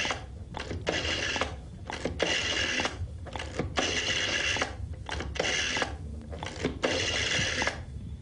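Rotary telephone dial being turned and let spring back, digit after digit: about six whirring, ratcheting strokes, each under a second, with small clicks between them.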